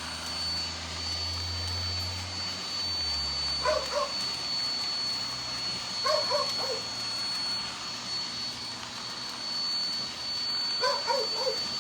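Roomba robot vacuum running with a steady high whine, its motor humming low for the first few seconds. A dog gives three short barks, a few seconds apart.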